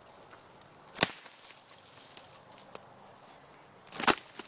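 Two sharp cracks of wood, about a second in and again about four seconds in, with a few light clicks between: the partly sawn juniper limb being broken off.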